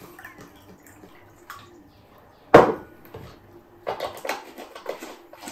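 A full drinking glass set down on a wooden table with one sharp knock about two and a half seconds in, followed near the end by a run of light clicks and rattles from a juice carton being handled.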